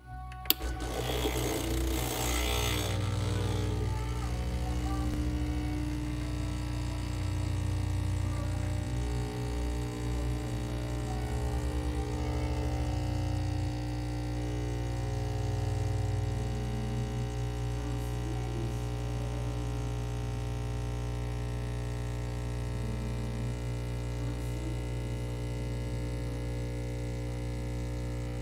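Home espresso machine's pump humming steadily while it pulls a shot through a bottomless portafilter, with a click and a brief hiss as it starts.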